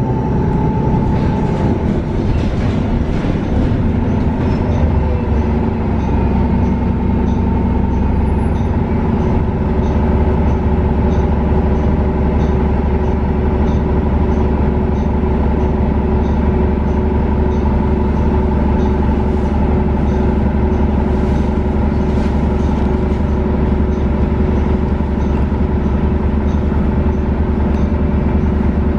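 Inside a 2019 Nova Bus LFS CNG bus under way: its Cummins L9N natural-gas engine and Voith D864.6 transmission running, a low drone with a steady whine. The pitch shifts in the first few seconds, then holds steady.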